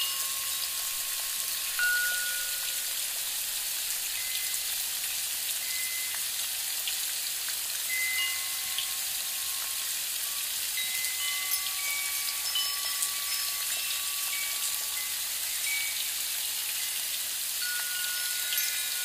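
Chimes ringing single notes of different pitches at random, each sounding for a second or so, over a steady rain-like hiss.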